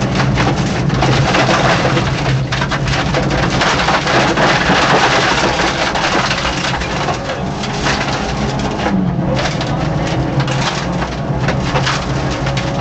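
Heard from inside the cabin of a Peugeot 205 1.9 rally car at speed: the four-cylinder engine running hard, with loud road noise and a dense clatter of sharp clicks and knocks.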